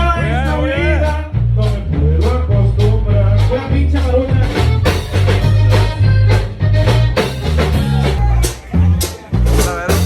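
Loud party music with a heavy bass line, a steady beat and a singing voice.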